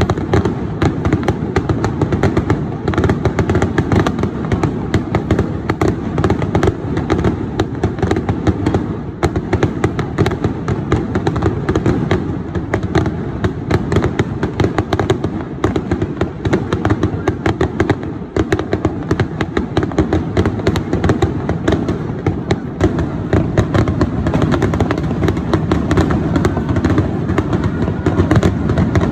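Aerial firework shells bursting into crackling gold stars: a dense, unbroken crackle of many sharp pops a second.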